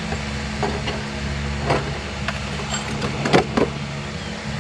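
A few light sharp clicks and knocks of engine parts being handled, the loudest about three seconds in, over a steady low mechanical hum.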